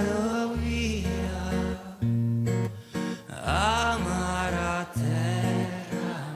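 Live male vocal, sung in long gliding, ornamented phrases over acoustic guitar and sustained low notes: a slow song performed in concert.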